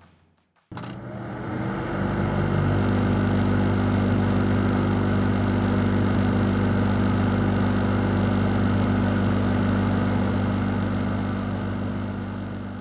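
A car engine idling steadily, fading in about a second in and fading out near the end.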